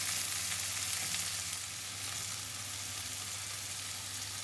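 Floured eggplant-and-fish rolls sizzling steadily in hot extra-virgin olive oil in a frying pan.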